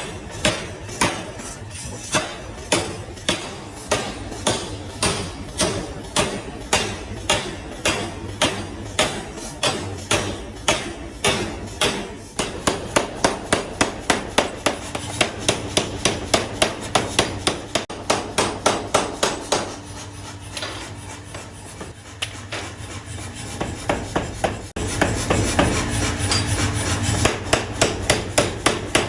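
Hammer blows forging a metal rod, struck in a steady rhythm: about two a second at first, then quicker at about four a second, with a stretch of lighter blows about twenty seconds in. A low, steady machine hum runs underneath.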